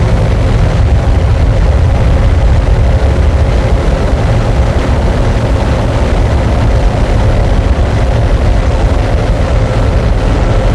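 Harsh noise music: a loud, unbroken wall of distorted noise, heaviest in a deep rumble, with no beat, melody or pause.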